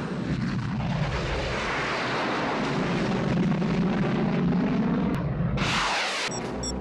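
Steady jet engine roar from a small single-seat jet, a BD-5J microjet, as it flies low and banks past. About five and a half seconds in, a sudden loud rushing whoosh cuts across as a smoke-trailing missile streaks by. It is followed by a run of quick, evenly spaced high beeps near the end.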